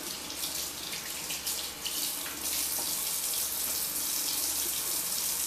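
Kitchen tap running into a sink: a steady rush of water that grows over the first couple of seconds, then holds.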